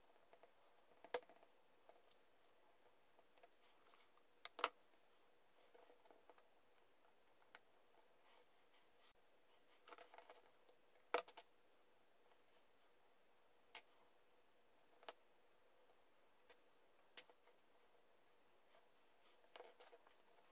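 Small wooden toy-tractor parts clicking and tapping as they are handled, fitted together and set down on a cutting mat: scattered sharp clicks, the loudest about a second in, midway through the first quarter and near the middle, with light handling rustle between them over a near-silent room.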